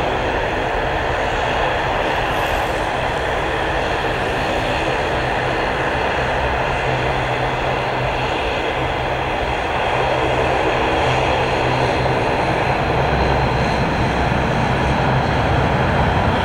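Airbus A320's twin jet engines at takeoff thrust as the airliner lifts off and climbs out: a loud, steady jet noise, whose low rumble grows a little stronger after about ten seconds.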